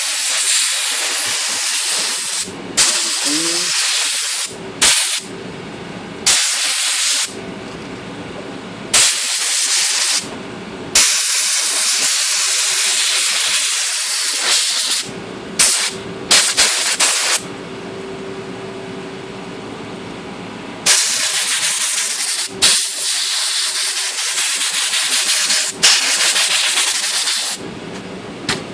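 Compressed air blasting in about a dozen bursts of hiss, some brief and some held for several seconds, blowing the last chemical cleaner residue out of a typewriter's keyboard levers and comb. A faint steady hum sits in the gaps between blasts.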